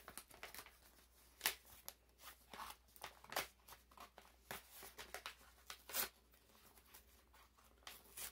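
Faint, irregular rustling and crinkling of packaging as a packaged deck of playing cards is handled and opened, with a few louder crackles about a second and a half in and again around six seconds.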